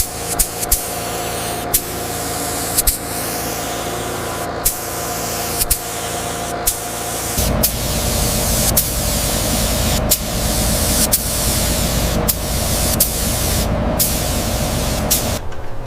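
Steady hissing spray over a steady mechanical hum, with brief short breaks. A low rumble grows stronger about halfway through.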